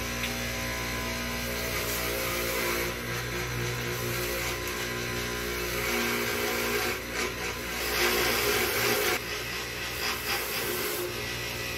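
A power tool running in the shop in several bursts, each a few seconds long, over a steady machine hum.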